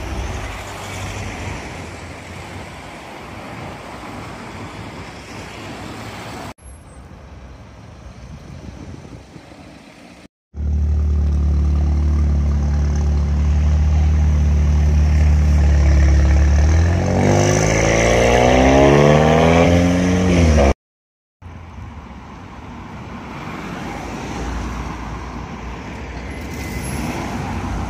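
Cars driving past on a street. In the middle, a loud car engine and exhaust sits at a deep steady note, then revs up with its pitch climbing for a few seconds before cutting off.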